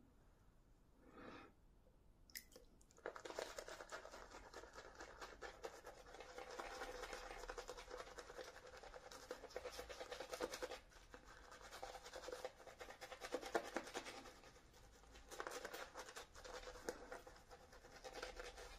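Shaving brush swirled through lather on a stubbly face: a fast, wet, scratchy rustle of bristles against skin, starting about three seconds in and going on with brief pauses.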